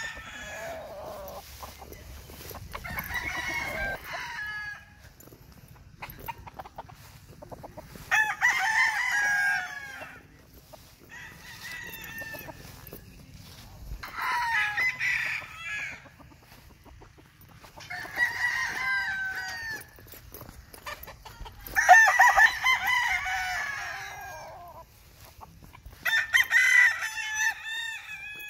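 Young gamefowl roosters, about five and a half months old, crowing again and again: some eight crows, each one to two seconds long, coming every few seconds.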